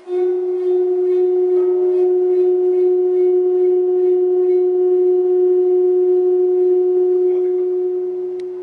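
A loud, steady tone held at a single mid pitch, with a fainter overtone an octave above. It starts suddenly and fades slightly at the end.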